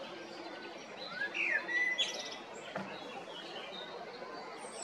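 Male common blackbird singing: one fluting, warbling phrase about a second in that ends in a high, squeaky twitter, over a steady background hum.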